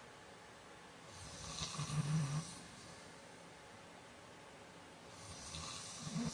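A sleeping man snoring: two snores about four seconds apart. The first, starting a little after one second in and lasting about a second and a half, is the louder, with a low rattle. The second, shorter one comes near the end.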